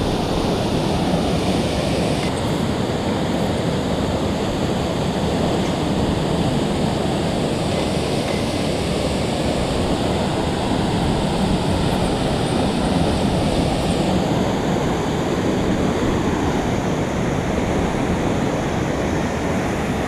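Water rushing steadily out through a dam's spillway gates into the river below.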